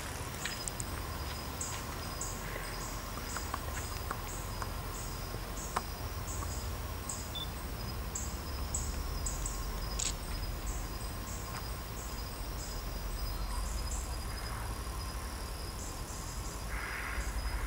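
Insects chirping outdoors at night: short high chirps repeating about three times a second, over a continuous thin high trill and a low steady rumble.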